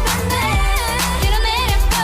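Pop music with a steady beat and a sung melody.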